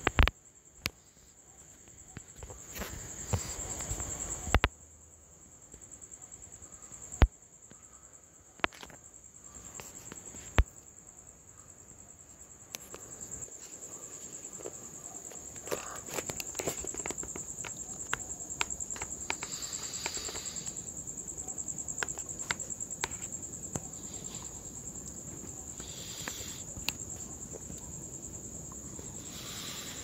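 Steady high-pitched insect trill, held without a break throughout, with a scattering of sharp clicks and knocks, the loudest in the first half.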